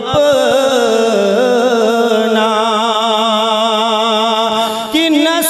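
A man singing a naat, drawing out one word in a long, wavering melisma. He breaks off briefly near the end and starts a new phrase on a different note.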